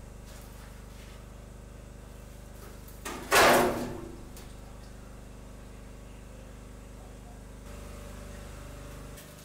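A generator runs steadily in the background. About three seconds in comes one loud bang from the shipping container's corrugated steel wall sheet, ringing briefly, as the partly cut panel is pushed by hand.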